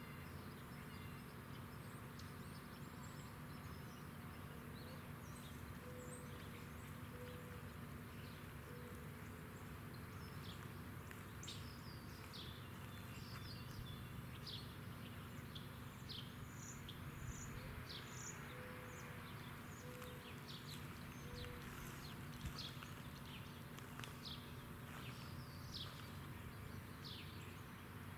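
Outdoor ambience with small birds chirping in quick high notes that fall in pitch, and two short series of low, steady calls, over a faint steady low hum. No siren is sounding.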